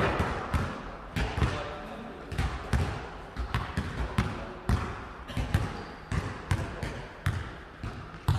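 A basketball being dribbled on a hard gym floor, about two bounces a second, each bounce echoing in a large sports hall.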